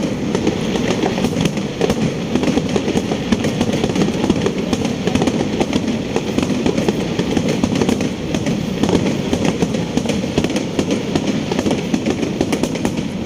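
Fireworks crackling: a dense, continuous run of rapid pops and crackles with no single big bang standing out.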